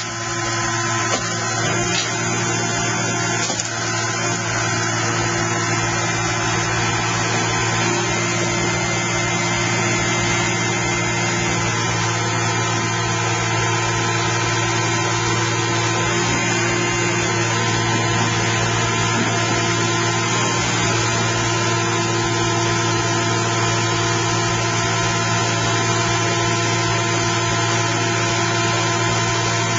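Car baler's engine and hydraulic pumps running steadily with a constant drone, with a few faint knocks in the first few seconds.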